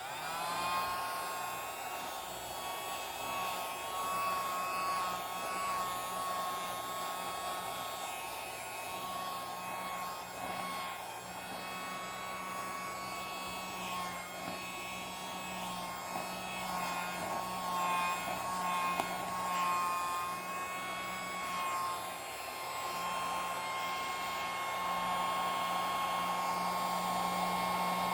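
Battery-powered mini vacuum cleaner running: a small motor's steady high whine over a rush of air. It switches on right at the start and wavers slightly in pitch as it works.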